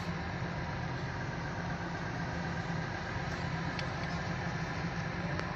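An engine idling steadily, a low even drone with a few faint ticks.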